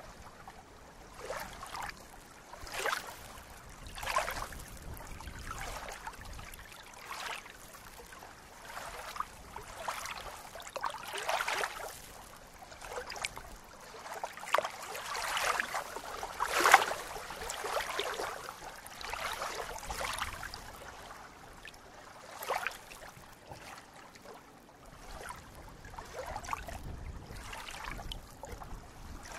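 Small ripples lapping and splashing against a reedy lake shore, in irregular soft washes every second or so, one louder splash about two-thirds of the way through.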